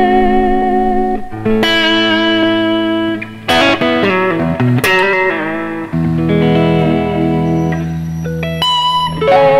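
PRS SE electric guitar with a roasted maple neck being played: held chords and single notes that change every second or two, with a longer sustained chord in the middle and quicker notes near the end.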